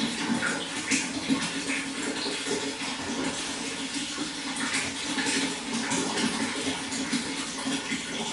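Running water flowing steadily, with many small splashes flickering through it.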